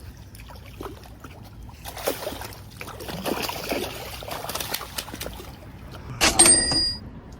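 Irregular water splashing and trickling, most likely a just-caught snook being handled at the water's edge, with a short, loud sharp sound about six seconds in.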